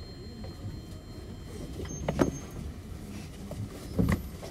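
Interior sound of an Osaka Monorail 2000 series car: a steady low rumble, with sharp clicks or knocks about two seconds in and again near the end.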